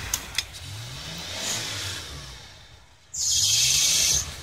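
Off-road 4x4 engines revving as one vehicle tows another up a snowy slope on a strap, the engine note rising twice. There are two sharp clicks at the start, and a loud hiss about three seconds in that starts and stops abruptly after about a second.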